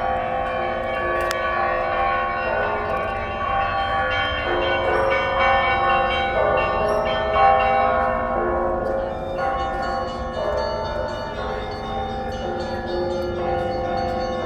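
Russian Orthodox monastery bells ringing: several bells of different pitches struck in an overlapping peal, each stroke ringing on under the next.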